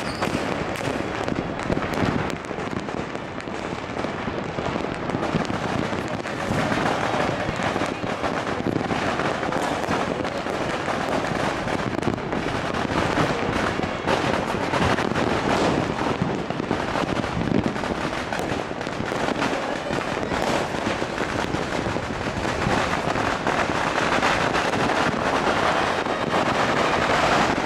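Many fireworks and firecrackers going off at once in a dense, unbroken crackle of overlapping pops and bangs, with aerial shells bursting among them.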